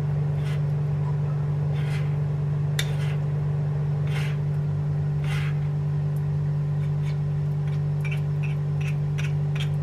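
A spoon scraping and tapping in a fine-mesh metal strainer, pushing water chestnut flour batter through it into a pan, a few soft strokes spread over several seconds. A steady low hum runs underneath.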